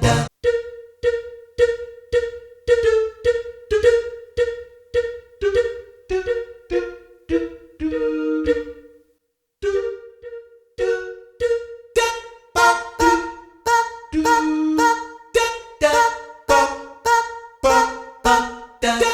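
Roland FP-10 digital piano's jazz scat voice patch played as a melody: short sung-syllable notes in a steady rhythm, one held note about eight seconds in followed by a brief pause, then brighter, busier notes.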